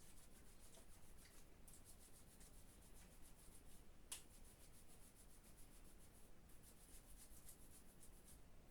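Near silence with faint rustling of clothing as a sleeve is pushed up the arm, and one sharp click about four seconds in.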